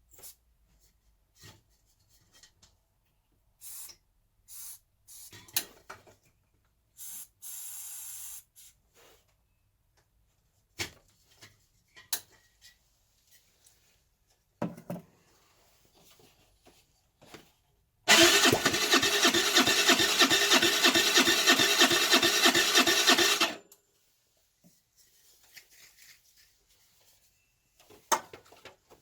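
Starter motor cranking the Baotian Tanco's 50cc single-cylinder four-stroke engine for about five seconds in an even, fast pulsing rhythm, then stopping without the engine catching. The scooter won't start. Scattered clicks, handling noises and a short hiss come before it.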